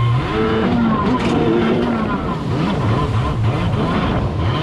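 Yamaha Superjet stand-up jet ski's two-stroke twin with a B-pipe exhaust, under way: its steady high revs drop just after the start, then rise and fall about twice a second before settling back to a steady note near the end. Water spray hisses underneath.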